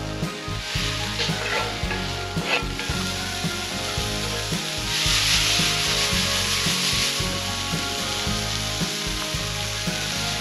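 Chopped vegetables frying in a cast iron skillet over a campfire, sizzling steadily as they are stirred in the pan. About five seconds in the sizzle surges loudly for a couple of seconds.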